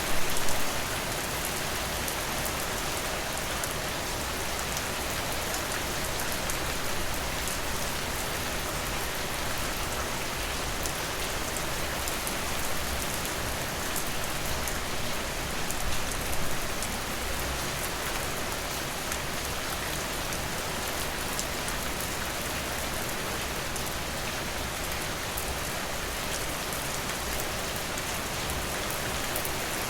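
Steady rain falling, with the fine patter of individual drops, swelling briefly louder just after the start and again about halfway through.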